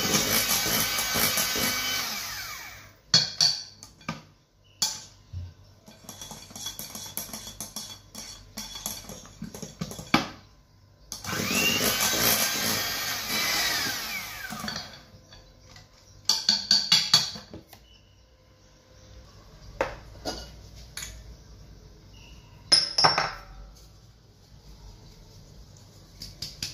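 Electric hand mixer beating chocolate cake batter in a glass bowl. It cuts off after about two seconds and runs again for about four seconds in the middle. Knocks and clicks of handling come between the two runs and after them.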